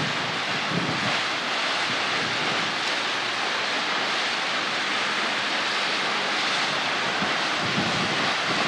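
Steady rushing of water cascading over the rock ledges of a man-made waterfall.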